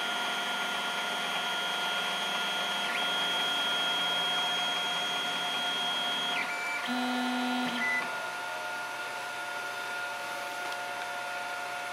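Creality Ender 4 3D printer running a print: its stepper motors whine in several steady high tones over the hum of the print-head fans as the head traces the outline. The tones shift briefly between about six and eight seconds in, and the sound is a little quieter after that.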